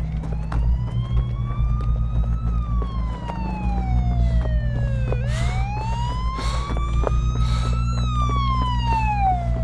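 Emergency-vehicle siren on a slow wail, its pitch rising and falling twice, over a low steady rumble.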